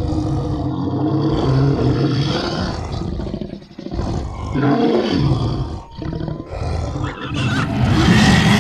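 Deep, rough monster growls and roars, in several long stretches broken by short pauses about four and six seconds in.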